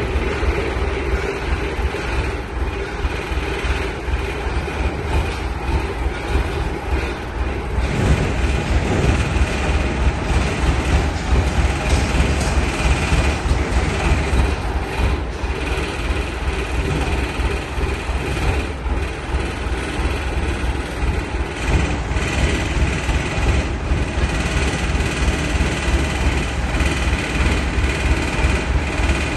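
Asphalt paver's diesel engine running steadily with a low rumble and a faint steady high whine, getting a little louder about eight seconds in.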